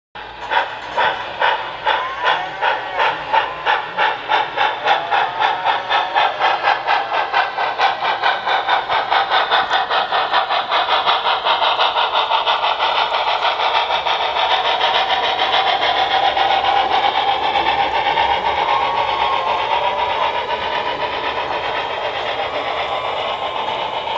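Model ACL R-1 4-8-4 steam locomotive departing: its exhaust chuffs start at about one a second and quicken steadily, until after about twelve seconds they run together into a continuous rushing chuff.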